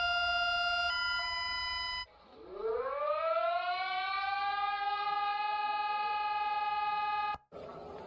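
An emergency alert alarm holds a steady siren tone that shifts pitch once, then stops about two seconds in. A siren then winds up from a low pitch, rising and levelling into a steady wail, and cuts off suddenly just before the end.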